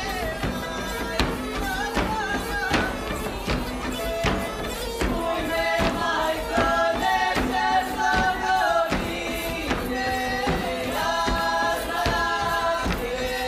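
A group of voices singing a traditional folk song in phrases with short breaks between them, over regular sharp beats about two or three a second.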